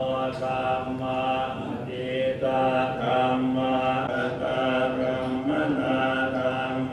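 Buddhist monks chanting in unison, a near-monotone recitation held on one pitch with a short break for breath about two seconds in.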